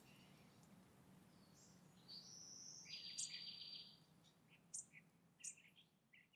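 Faint songbird calls: a rapid trill about two seconds in, then several short separate chirps, over a faint low steady hum.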